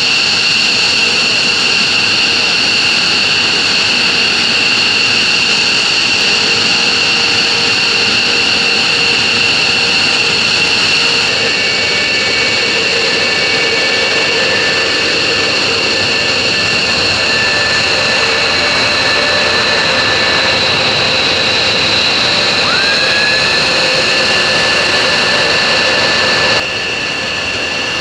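Military jet engines of F-15 and RF-4 Phantom fighters running at idle: a loud, steady roar with a high-pitched whine. The sound changes abruptly about eleven seconds in, and again near the end, where it drops in level.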